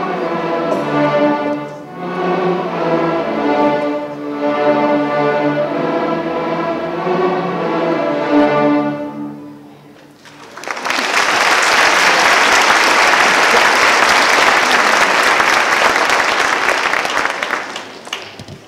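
Youth string orchestra of violins, violas, cellos and double basses playing long bowed notes and chords; the piece ends about halfway through. Audience applause follows a second or so later and runs until near the end.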